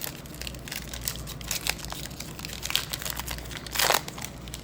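Baseball cards and their packaging being handled: a run of small crinkling crackles, with one louder rustle about four seconds in.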